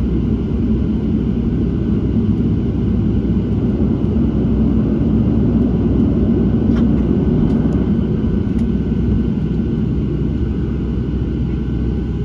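Cabin noise of a Boeing 737-700 taxiing: a steady rumble from its CFM56 engines at idle, with a faint steady whine on top. A few faint clicks come around the middle.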